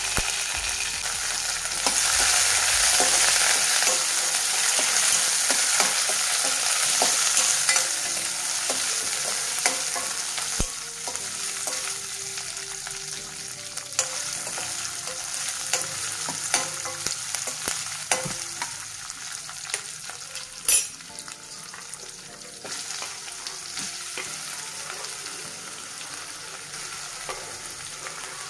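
Hot oil sizzling in a steel kadai as a tempering of mustard seeds, dals and curry leaves fries, then sliced onions and green chillies frying. The sizzle is loudest a couple of seconds in and eases off later, with scattered taps on the pan and one sharp knock about two-thirds of the way through.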